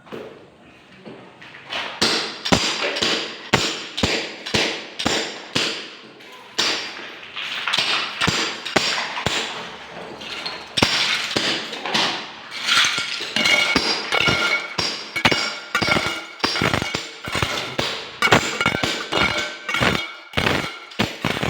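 Hammer blows struck over and over, about two to three a second, each with a short metallic ring, starting about two seconds in.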